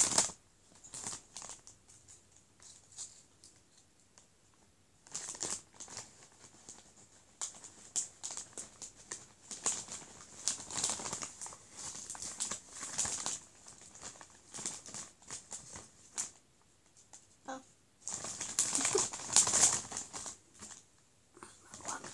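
Crinkling and rustling of a Doritos crisp packet as a hand digs through it for crisps, in irregular bursts with quieter gaps, loudest near the end.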